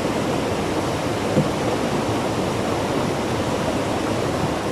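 Small woodland stream rushing steadily, an even wash of water noise, with one brief knock about a second and a half in.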